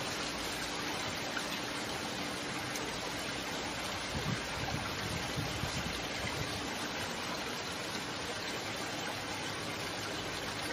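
Steady rushing hiss of water flowing in a stream channel, with a few soft low knocks about halfway through.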